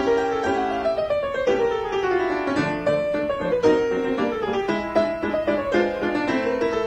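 Piano accompaniment music playing quick runs of notes, with long runs falling in pitch through the first half.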